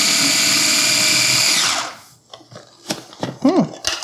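KitchenAid 3.5-cup mini chopper's motor running at speed, chopping garlic cloves, then cutting out just under two seconds in and spinning down with a falling whine. Light plastic clicks and knocks follow as the bowl's lid is taken off.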